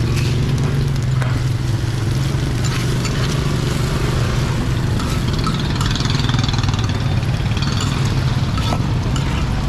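A metal spatula scraping and tapping on a large flat griddle as cubes of fried flour cake are stirred and turned in hot fat, with a few sharp clicks from the spatula. A steady low engine-like hum runs underneath and is the loudest sound.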